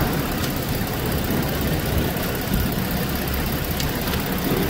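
A Ford Explorer's 3.5-litre V6 is idling steadily. The engine is running evenly on its new cylinder 3 ignition coil, with the misfire gone.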